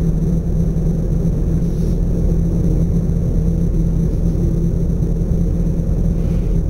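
Steady, loud, low rumble with no breaks or distinct events.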